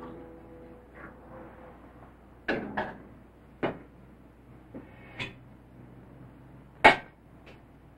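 Kitchen canisters and jars being picked up and set down on a counter: a handful of knocks and clatters, the loudest near the end.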